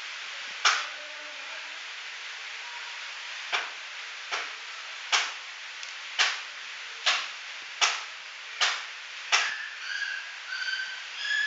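Nine sharp taps, about one a second, over a steady hiss, with faint short high tones near the end.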